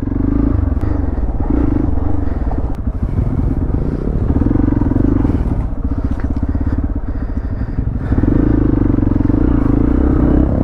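Hero XPulse 200 4V motorcycle's single-cylinder engine running while the bike is ridden on a rough off-road trail, the engine note swelling around the middle and getting louder from about eight seconds in.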